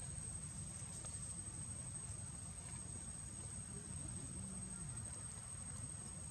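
Steady high-pitched drone of insects over a low, even rumble.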